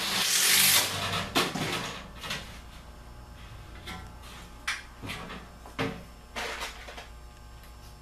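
Sheet-metal filter rack on a furnace cabinet being handled: a loud burst of noise under a second long at first, then scattered knocks and taps of metal.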